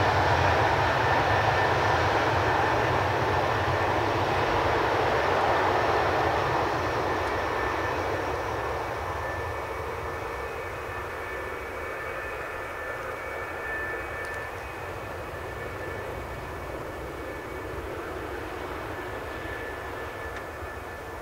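Boeing 737-800's CFM56-7B jet engines running during the landing rollout, fading over the first ten seconds as the aircraft moves away down the runway, then holding at a steady lower level with a thin high whine.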